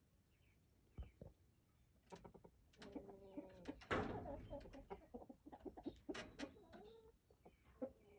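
Chickens clucking in short repeated calls, mixed with scattered clicks and a loud burst of noise about four seconds in.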